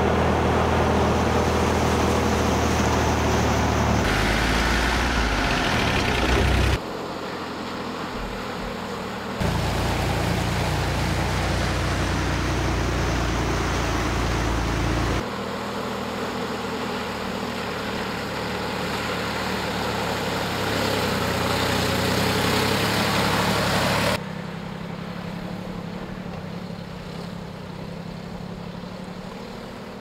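1957 Tatra 805 truck's air-cooled V8 engine running as the truck drives through floodwater, with water splashing around it. The sound comes in several takes that cut abruptly from one to the next, a few seconds to nine seconds each.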